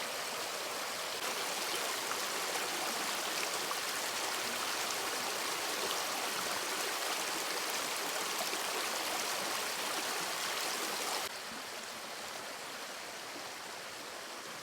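Water rushing down a waterfall: a steady rushing hiss that drops a little in level about eleven seconds in.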